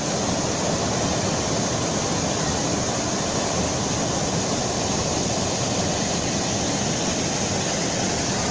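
Waterfall rushing with a steady, even roar.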